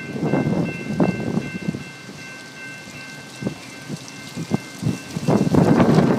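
Wind buffeting the microphone in irregular gusts, a rumbling rush with crackles, easing off in the middle and picking up strongly near the end.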